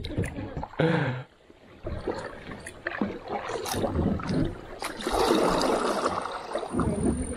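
Kayak paddle strokes through river water: blades dipping and pulling, with splashing and dripping, and the sound is strongest in the second half. A short voice sound about a second in.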